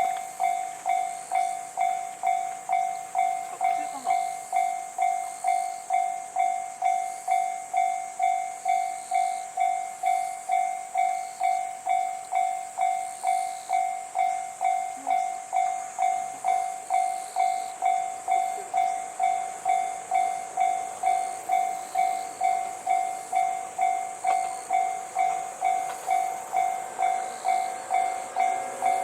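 Japanese railway level-crossing warning bell ringing continuously, a steady pitched electronic ding repeating evenly a little under twice a second: the signal that a train is approaching the crossing. Near the end, faint rising tones of the approaching train come in under it.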